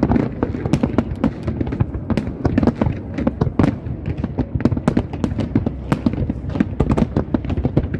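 Fireworks going off in a dense, continuous barrage: overlapping bangs and crackles, several a second, with no let-up.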